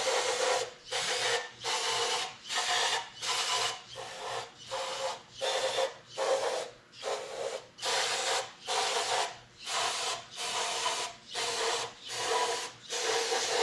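Rhythmic back-and-forth rubbing strokes, about two a second, of an engine block's deck surface being scrubbed clean before a torque plate goes on.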